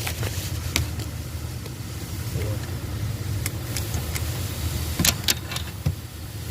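A motor vehicle engine running steadily with a low rumble, and a few sharp metallic clicks over it, the loudest two close together about five seconds in.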